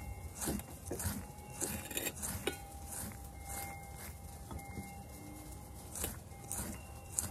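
Basting brush dabbing butter sauce onto a grilled corn cob: a string of irregular soft strokes and light knocks.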